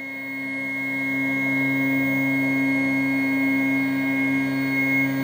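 Stepper motors of a MillRight Carve King 2 CNC router whining steadily as they drive the X and Y axes together toward their limit switches during homing. The whine swells over the first second and then holds steady.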